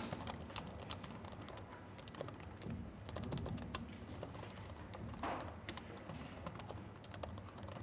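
Laptop keyboard typing: a faint, irregular run of quick key clicks.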